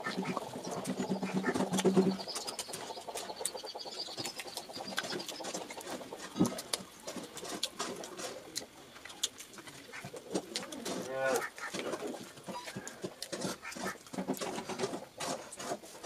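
Close-up eating sounds: wet chewing, lip smacks and fingers picking at fried fish and rice on a banana leaf, in many short clicks. A low, steady hum-like tone runs through the first two seconds.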